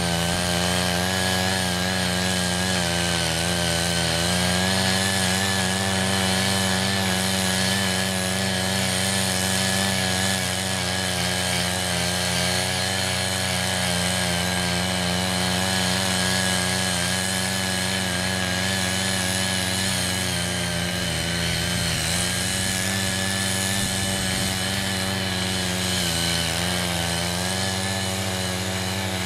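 Small petrol engines of two mini foldable rotary cultivators, a 78.5 cc CY80 with ten tilling blades and a CY50 with six, running steadily under load as their blades loosen untilled soil. The engine pitch sags briefly a few times.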